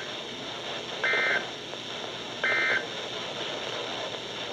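Two short bursts of EAS SAME digital data tones, the end-of-message code that closes a weather radio alert. Each is a harsh two-tone warble about a third of a second long, about 1.4 s apart, over steady radio static hiss.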